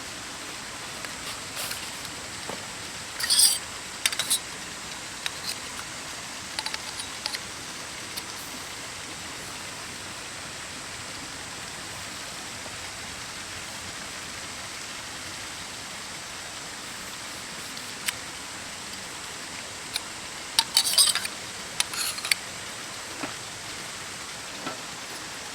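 Steady hiss of rain, with a few light clinks about three seconds in and a cluster of them near the end.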